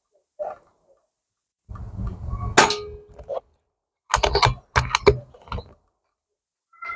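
Armex Reaper 10 PCP air rifle firing with a single sharp report and a ringing metallic clang, followed a couple of seconds later by a quick run of sharp mechanical clicks and clacks.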